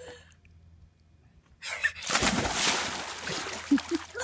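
A child jumping into a swimming pool: a big splash about two seconds in, followed by water churning and splashing as he paddles.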